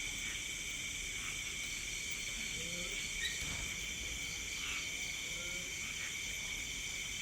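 A chorus of night insects trilling steadily at several high pitches, the continuous drone of a rural farmyard at night.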